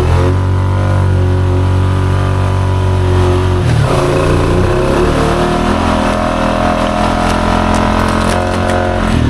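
Honda Foreman ATV engine running steadily under throttle while riding. Its pitch dips briefly about four seconds in, then holds steady again.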